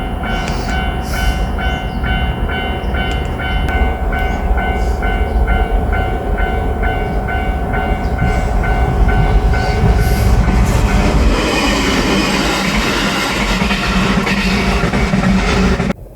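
Japanese level-crossing warning bell ringing in an even, repeating pattern while a diesel railcar passes over the crossing with a heavy rumble of engine and wheels on the rails. The bell stops about eleven seconds in, and the train's rolling noise carries on and grows until the sound cuts off suddenly near the end.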